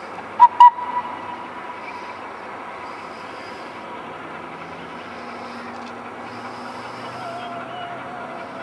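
The replica Mary Ann vertical-boiler steam locomotive and its open wagons running steadily along the track. About half a second in come two sharp, loud knocks, and a ringing tone follows them and fades over a couple of seconds.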